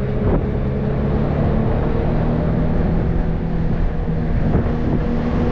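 Nissan 370Z roadster's 3.7-litre V6 running at a steady cruise under way, its note shifting slightly in pitch a few times. Wind and road noise fill the open cabin with the roof down.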